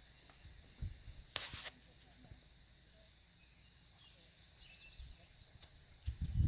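Quiet outdoor pond ambience: a steady faint high hiss with a few faint bird chirps. There is a short rustling burst about a second and a half in, and a louder low rumble on the microphone starts near the end.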